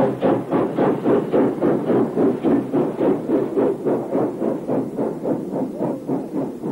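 New South Wales Government Railways steam locomotive working along at speed, its exhaust beating in a fast, even chuff of about five beats a second.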